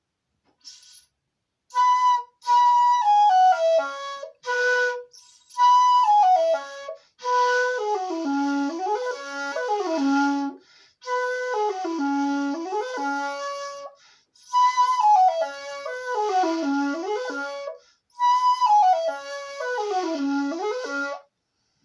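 Shakuhachi, an end-blown Japanese flute, playing short melodic phrases separated by brief pauses: runs of notes stepping down from high to low, several of them dipping to the lowest note and climbing back, with an airy, breathy tone.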